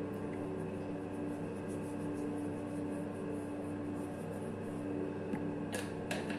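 Steady low background hum with a constant tone, broken by a few short sharp clicks near the end.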